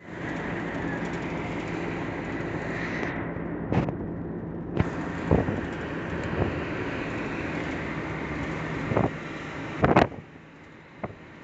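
Vehicle cab noise at highway speed: a steady engine hum and road rumble, broken by about seven short, sharp knocks through the middle. The noise drops noticeably about ten seconds in.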